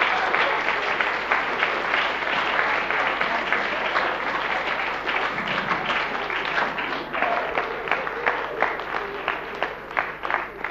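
Audience applauding. The clapping dies away, thinning to fewer, separate claps near the end.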